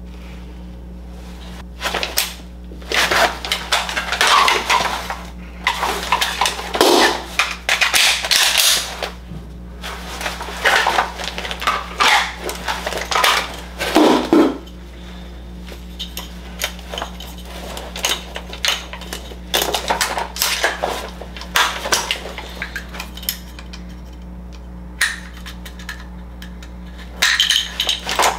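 AR-15 rifle being handled in dry-fire drills: repeated metallic clacks and rattles of the action and magazine, mixed with handling and gear noise, with a quieter stretch a few seconds before the end.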